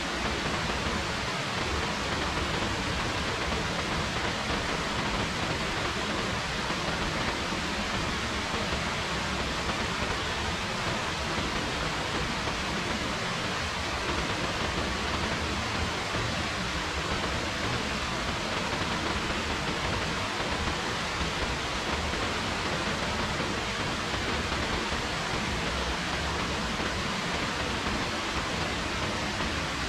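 Rain falling steadily: an even hiss that holds at one level throughout, with no single drops or other sounds standing out.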